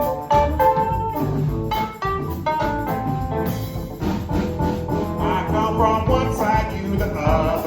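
Live blues band playing an instrumental passage between sung verses: electric guitar lines over bass and a steady drum beat.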